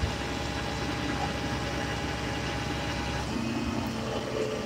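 Flatbed tow truck's engine idling steadily, with a low even hum; about three seconds in, a new steady tone joins it.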